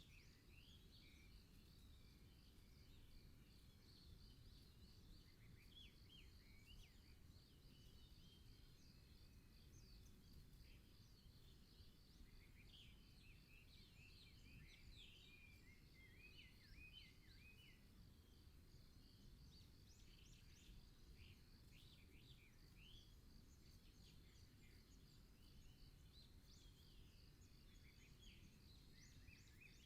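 Faint wild songbirds chirping and twittering, with calls coming and going and thickest around the middle and at the very end. A steady high, rapidly pulsing note runs underneath, over a low background rumble.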